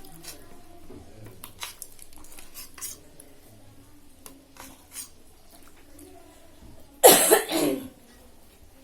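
Spoon or fork clinking lightly against a plate while eating, with faint scattered clicks. About seven seconds in comes one loud, short cough, the loudest sound in the stretch.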